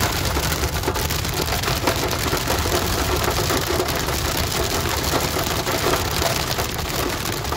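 Hail and rain hitting a car's roof and windscreen, heard from inside the cabin as a dense, steady patter of small impacts over the car's road noise.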